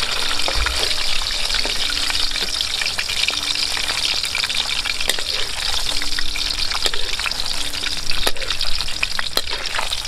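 Whole fish frying in hot oil in a wok, a dense steady sizzle peppered with small sputtering crackles.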